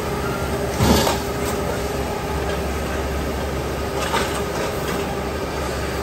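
Rail-mounted tie crane's engine running steadily on the track during tie replacement, with a loud metallic knock about a second in and a lighter one about four seconds in.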